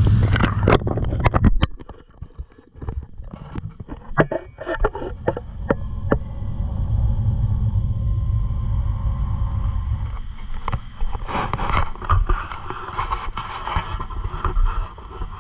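Jet boat underway on a river: low engine rumble with rushing water and wind. For the first couple of seconds it is loud, with sharp knocks and splashes of spray against the hull. After that it is quieter and steadier, and a hissing rush of water builds near the end.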